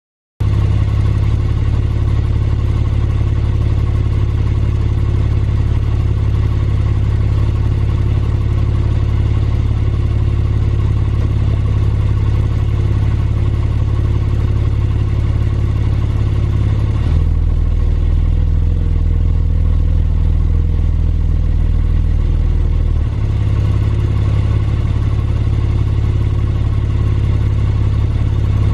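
Porsche 911 Targa 4S flat-six engine idling steadily. For about six seconds past the middle its low note changes, then settles back.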